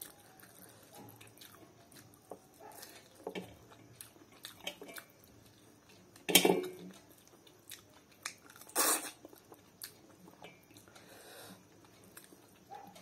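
Close-up chewing and wet mouth sounds of someone eating rice and chicken curry by hand, in short scattered smacks and clicks. Two louder bursts come about halfway through and again a couple of seconds later.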